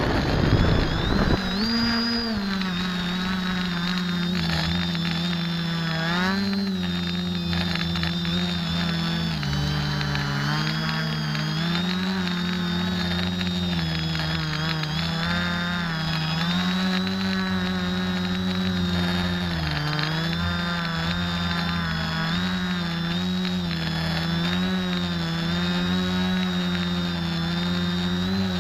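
X550AIOP quadcopter's brushless motors and propellers humming in flight, heard from the onboard camera: a steady buzzing tone that rises and falls in pitch as the throttle changes. A brief louder rush of noise comes in the first second or so.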